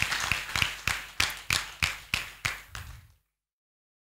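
A crowd clapping in unison, about three sharp claps a second and slowing slightly, cut off abruptly about three seconds in, followed by dead silence.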